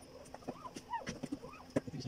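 Newborn Belgian malinois puppy crying in several short squeals that rise and fall, with faint handling clicks.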